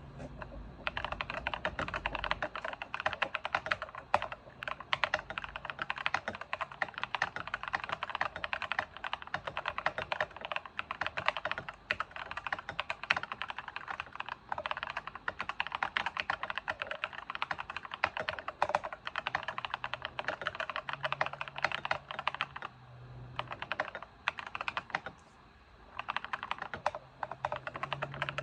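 Akko 5087S mechanical keyboard with Akko V3 Cream Yellow linear switches, foam- and tape-modded, being typed on quickly and continuously. There is a short pause a few seconds before the end.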